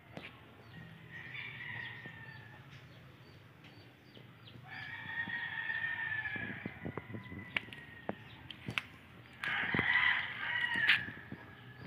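Roosters crowing three times, each crow lasting one to two seconds: a faint one about a second in, a louder one about five seconds in, and the loudest near the end. A few short clicks come between the crows.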